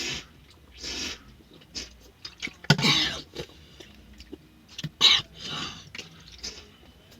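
A person huffing out short, sharp breaths and clearing the throat hard, loudest about three seconds in, reacting to the burn of very spicy food.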